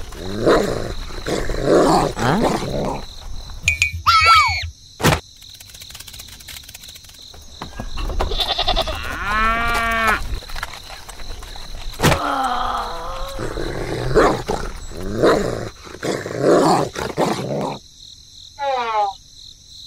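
A run of dubbed animal-call sound effects, one call after another, several sliding up or down in pitch, with short silent gaps and two sharp clicks between them.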